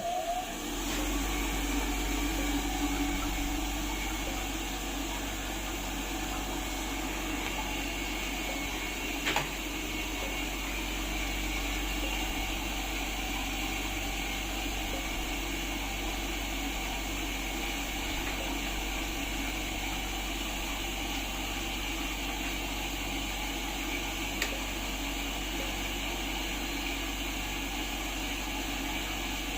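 Centrifugal humidifier running: a steady whirring hiss over a low motor hum, settling to an even level about a second in. A brief click about nine seconds in.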